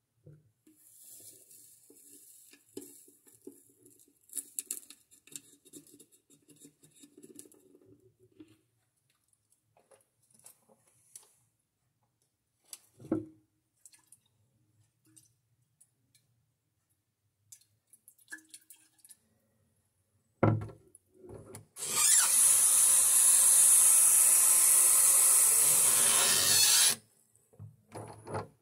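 Paper drink-mix packet crinkling and powder sliding into a glass bottle, a couple of knocks on the counter, then a bathroom faucet running steadily into the bottle for about five seconds before shutting off.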